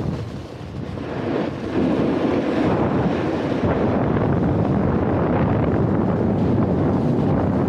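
Wind buffeting the Insta360 GO 2 action camera's microphone at riding speed, mixed with the hiss of a Lib Tech Orca snowboard sliding over groomed snow. The rushing noise is softer for about the first second and a half, then loud and steady.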